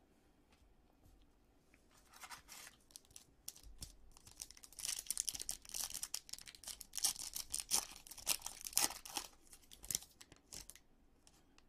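Foil trading-card pack wrapper being torn open and crinkled by hand, starting about two seconds in, loudest in the middle and dying away near the end.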